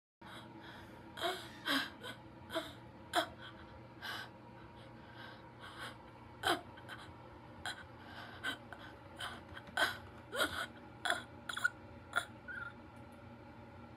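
A person's short, sharp gasps, about twenty of them at irregular intervals, over a faint steady hum.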